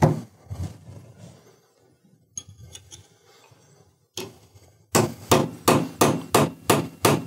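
Hammer striking a flat metal bar held against a nub of a ball intake valve's retainer nut, driving the tight, preloaded nut round to unscrew it. A few separate knocks and a faint metallic ring come first, then steady blows about three a second from about five seconds in.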